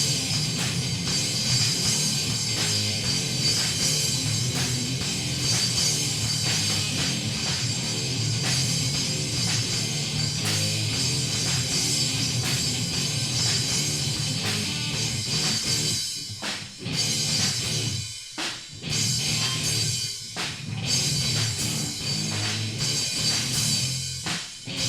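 Live rock band playing an instrumental passage with drum kit, guitar and bass. In the second half the band stops short several times between hits.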